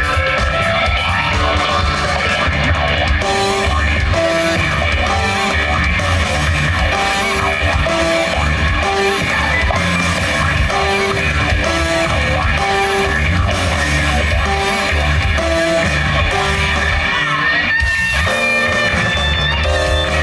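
A rock band playing live in an instrumental passage: guitars over heavy bass, with a repeating melodic guitar figure. About 18 seconds in the band breaks off briefly, then comes back in.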